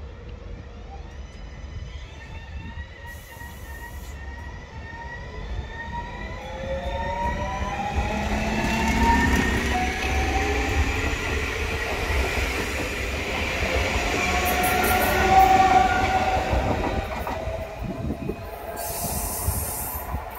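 Class 72 electric multiple unit pulling into the station: its traction motors' whine falls steadily in pitch as it slows, over a growing rumble of wheels on rail. A squealing tone, typical of wheels or brakes, comes in as it passes close.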